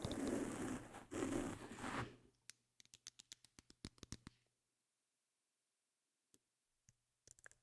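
Close-miked ASMR trigger sounds: two scratchy brushing strokes, then a quick run of light clicks, about five a second, that stops around the middle, leaving near silence with a few faint clicks near the end.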